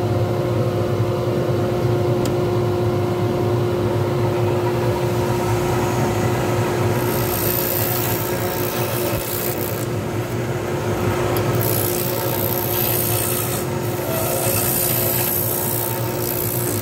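Small lathe motor running steadily with a hum and a steady whine as a hand-held turning tool cuts a spinning glitter resin pen blank. The scraping of the cut comes in about seven seconds in and swells in short spells.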